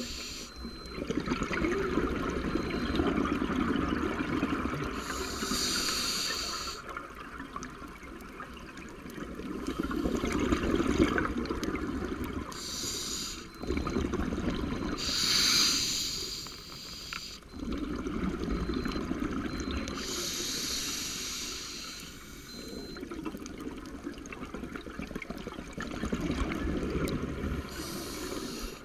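Scuba diver breathing through a regulator underwater: a hiss on each inhale, then a longer rumbling gurgle of exhaled bubbles, about five slow breaths in a row.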